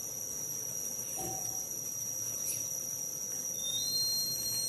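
DC buzzer of a 9 V rain alarm starting up about three and a half seconds in: a high steady tone that rises slightly in pitch as it starts. Water in the plastic cup has bridged the two wires and completed the circuit. A steady high-pitched whine runs underneath throughout.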